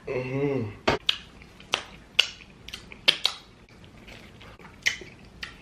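A person eating sushi: a short hummed moan at the start, then a string of sharp, separate lip smacks and mouth clicks while chewing.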